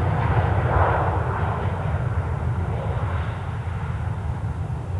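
Airliner's engines rumbling as it passes, the sound slowly fading.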